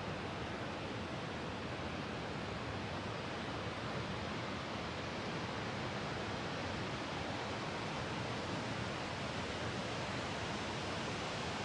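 Steady, even rush of falling water from the Twin Falls waterfall nearby.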